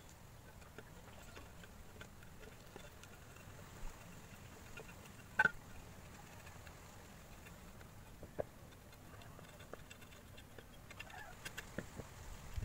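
Sparse sharp knocks of a machete blade against a coconut shell as the husk is trimmed off. One louder knock comes about five seconds in, a lighter one a few seconds later, and a run of light taps near the end.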